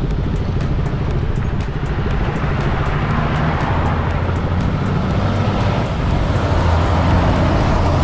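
KTM Duke 200's single-cylinder engine running while the bike is ridden, under a steady rush of air and road noise.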